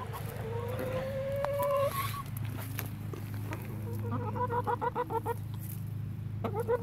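Domestic hen vocalizing: one long drawn-out call rising slightly in pitch, then a quick run of clucks about four seconds in and another near the end.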